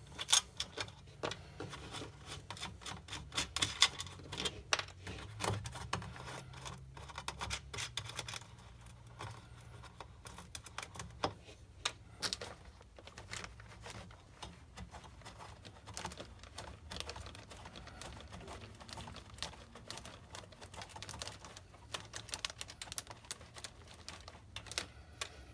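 Irregular light clicks and taps of a hand nut driver and fingers working the nuts off the studs that hold a subwoofer in a Stern pinball cabinet.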